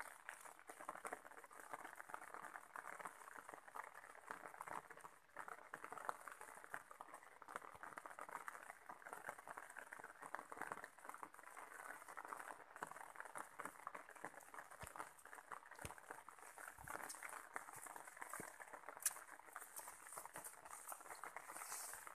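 Faint, steady crackling patter of light rain falling on leaves and vegetation, with one sharp click near the end.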